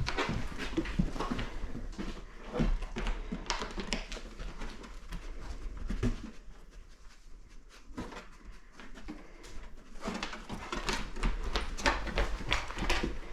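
A scent-detection dog searching at close quarters, making quick, short noisy sounds of movement and sniffing, with a quieter stretch about six to ten seconds in.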